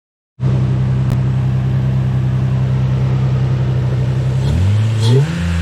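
Lexus IS300's inline-six engine idling steadily, then blipped about four and a half seconds in, the revs rising briefly and dropping back.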